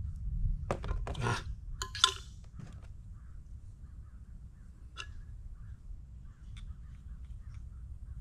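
Hand-assembled plastic pipe fittings clicking and knocking: a quick cluster of knocks in the first two seconds, the sharpest about two seconds in, then a few faint clicks over a low rumble.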